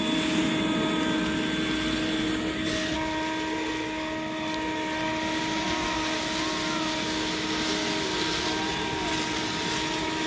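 Battery-powered leaf blower running steadily at one speed: a constant whine over rushing air.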